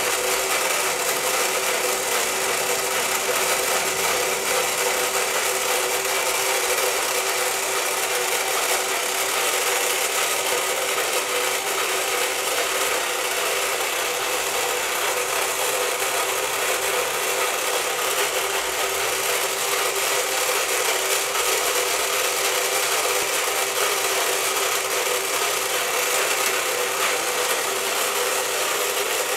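Battery-powered mini whack-a-gator toy running, its small motor and plastic gears whirring and ratcheting steadily as they drive the pop-up gators.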